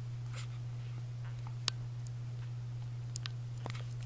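Newborn puppies suckling at their mother's teats: a few scattered small wet clicks and smacks, the sharpest one about one and a half seconds in, over a steady low hum.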